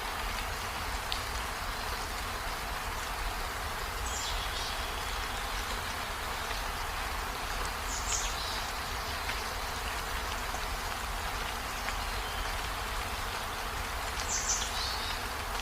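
Steady hiss of rain, with three brief high chirps about four, eight and fourteen seconds in.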